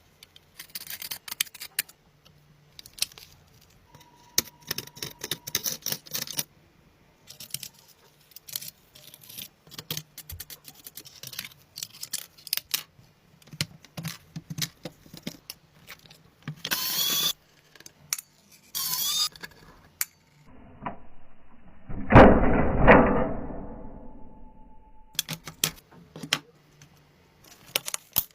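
Handling and small-tool noises on a diecast toy car being worked on: a long string of clicks, scrapes and rattles of small metal parts. About 22 seconds in comes one louder burst lasting a couple of seconds.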